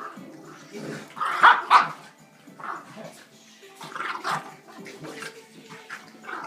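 Two small dogs, one a French bulldog, play-fighting, with irregular bursts of growling and barking. The loudest burst comes about a second and a half in.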